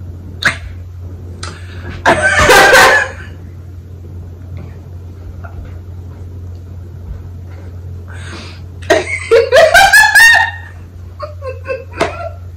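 A woman laughing in two main bursts, one about two seconds in and a longer one from about nine to ten and a half seconds in, over a steady low hum.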